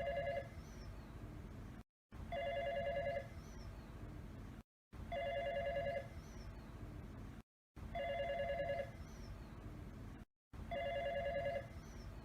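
Fax machine ringtone: an electronic trilling two-tone ring about a second long, repeating roughly every three seconds. Between rings there is a steady hiss, broken each time by a short dead-silent gap.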